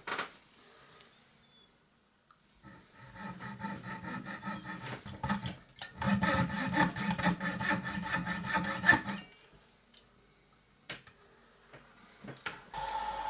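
Jeweller's saw cutting through a small brass pin held in a lathe collet: quick back-and-forth rasping strokes that get louder about halfway through and stop as the pin is cut off. Just before the end a steady motor hum starts.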